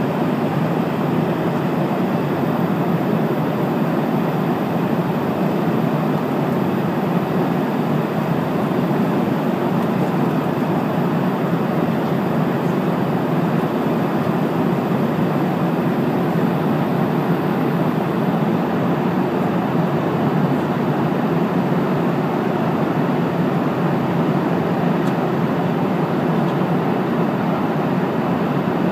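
Steady drone of cabin noise inside a passenger airplane in flight, the engines and rushing air blending into one even noise. The plane is descending.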